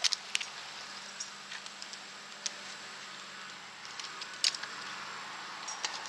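Scattered short clicks and scrapes from a climber moving up a tree trunk: gloved hands and boots against the bark and climbing gear knocking, with a louder click about four and a half seconds in, over a steady faint hiss.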